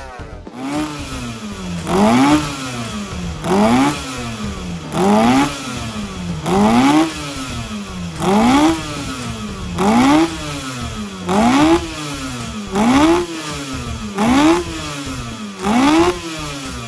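A vintage racing boat's engine with twin tuned exhaust pipes, running ashore and revved over and over. Each blip rises in pitch and then falls back, about every one and a half seconds, roughly ten times.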